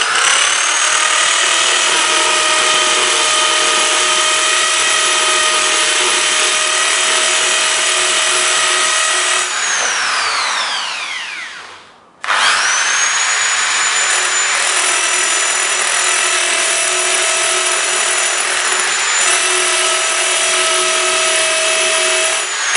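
Electric power drill running at speed with its bit pressed into a smartphone's glass screen, a steady high motor whine. About ten seconds in, the motor spins down to a stop, falling in pitch. It then starts again abruptly and runs on steadily.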